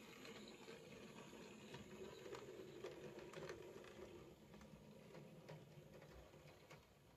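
OO gauge model locomotive and brake van running along the track: a faint rattling whirr of the small motor and wheels with scattered clicks, fading near the end.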